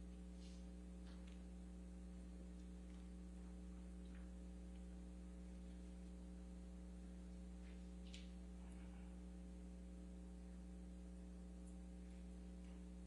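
Near silence: a steady electrical mains hum, with a few faint clicks.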